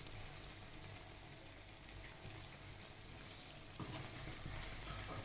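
Chicken pieces deep-frying in oil in a wok: a faint, steady sizzle, with a low hum underneath. About four seconds in it gets a little louder as a spatula stirs the pieces.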